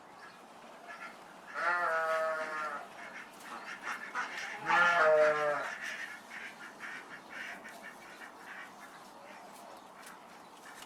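An animal calling twice, each call a drawn-out cry about a second long, the second one louder.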